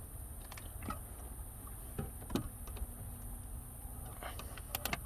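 Scattered light clicks and knocks of hands prying at a car's trunk trim piece, over a low steady hum.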